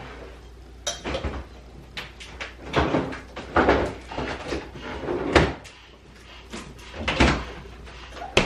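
A refrigerator door opened and closed while yogurt is put away on its shelves: a string of separate clunks and knocks, the sharpest a little past the middle.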